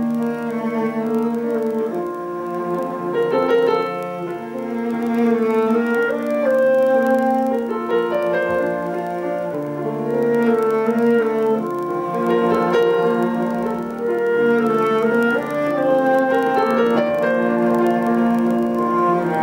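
Small chamber ensemble playing live: piano with long held melody notes above it, in a slow classical style.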